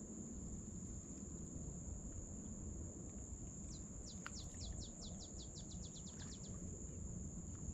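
A bird singing about halfway through: a run of roughly fifteen quick downward-sliding whistled notes that speed up as they go. Underneath, a constant high thin tone and a low rumble of wind and water noise.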